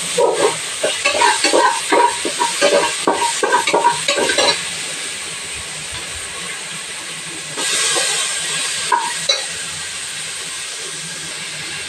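A wooden spoon stirs and scrapes in an aluminium pressure-cooker pot of cooked toor dal with tomatoes, with quick irregular knocks against the pot for about four seconds. Then there is a steady sizzle of onions and spices frying in oil in a kadai, briefly louder a few seconds later.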